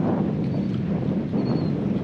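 Steady wind buffeting the microphone on an open boat, with the rush of water underneath.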